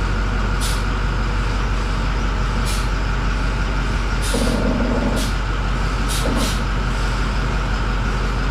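Heavy diesel engine idling steadily, with several short hisses of air cutting in over it, one a little longer about halfway through.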